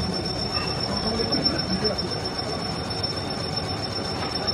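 Metal lathe turning a cast iron piston, the cutting tool taking a cut off the spinning piston: steady machining noise with a high, steady whine.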